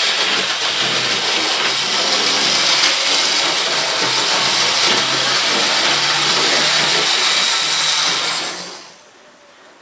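OO gauge model locomotive running round the track, its small electric motor whirring steadily with the wheels rumbling on the rails, until the sound dies away about nine seconds in.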